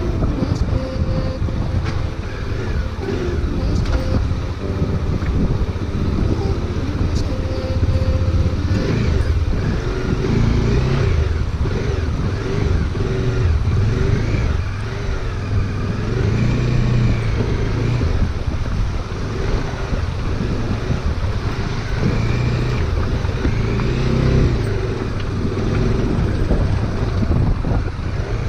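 Motorcycle engine running with a steady, loud low rumble, its pitch wavering up and down as the rider works the throttle.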